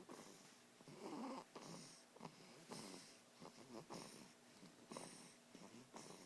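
A sleeping toddler snoring faintly: a soft rasping snore with each breath, one after another in a steady breathing rhythm.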